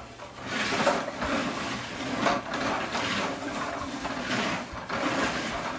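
Hard plastic wheels of a toddler's ride-on tricycle rolling and scraping on a vinyl floor as the trike is spun around, a rushing noise that swells about half a second in and surges unevenly.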